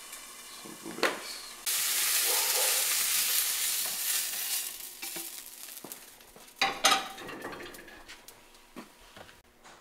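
Chicken and asparagus sizzling in a hot frying pan while they are lifted out into a bowl, the sizzle starting suddenly about two seconds in and dying away over several seconds. A sharp clank of a metal utensil against the pan comes about seven seconds in.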